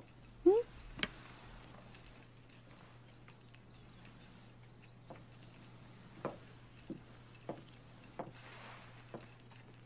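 Quiet room tone with a low steady hum. A brief rising vocal sound comes about half a second in, and a handful of soft, scattered clicks and taps follow.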